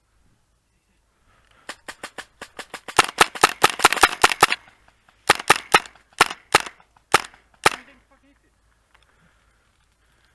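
Airsoft gun firing: a string of sharp cracks, a quick, louder burst in the middle, then a few single shots about half a second apart.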